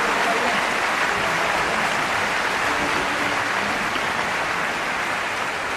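Large crowd applauding steadily, easing off slightly.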